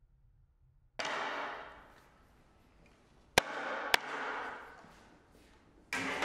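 Flax being scutched: a scutching knife swung down against an upright wooden scutching board, striking through the hanging retted flax. Three strokes, each a sudden hit followed by a swish of fibres that fades over about a second; the middle stroke has two sharp cracks.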